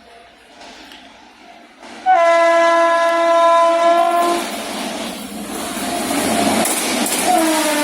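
WAP-7 electric locomotive horn sounding one long blast of about two seconds, starting about two seconds in, then the rising rush and clatter of the passing train, with the horn starting again near the end.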